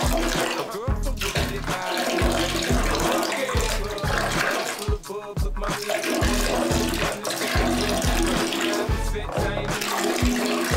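Music with a steady beat playing over the sound of running water.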